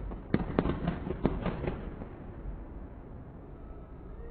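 Fireworks going off: about half a dozen sharp bangs and cracks in quick succession in the first two seconds, then a fainter steady noise.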